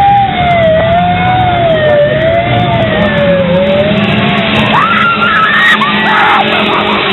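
Loud din of chainsaw engines droning steadily under a slow, wailing siren tone, with high rising screams breaking in about five seconds in.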